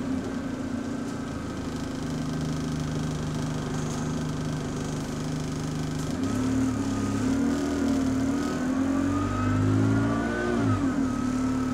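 The XFE-converted bus's diesel engine and driveline, heard from inside the passenger saloon while driving. The note is a steady drone at first; from about six seconds in it rises and falls as the bus accelerates and shifts gear, with a higher moaning tone over it.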